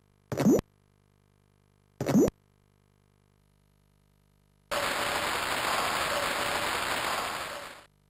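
Cartoon sound effects: two short rising 'bloop' plops about a second and a half apart, then about three seconds of steady rushing, water-like noise that fades out.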